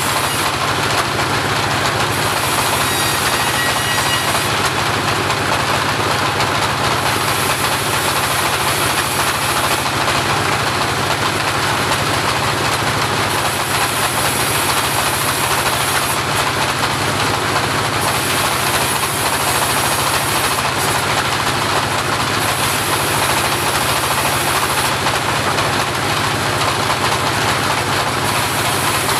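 Homemade portable bandsaw running, a loud, steady mechanical rattle with a high hiss that comes and goes every few seconds.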